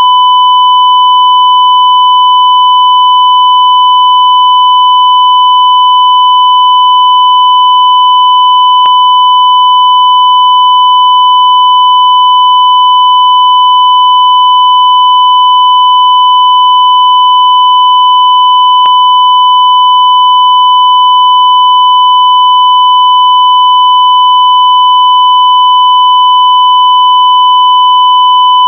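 Censor bleep: one loud, steady beep tone at the usual bleep pitch, held without a break, with two faint clicks about ten seconds apart.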